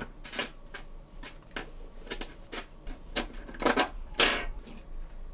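Carbon-fibre drone frame arms clicking and clattering as they are slotted over the upright screws of the bottom plate and against one another: a string of irregular light taps, with a few louder clacks in the second half.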